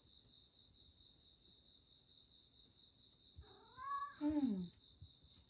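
A domestic cat's single long meow about three and a half seconds in, rising and then falling in pitch.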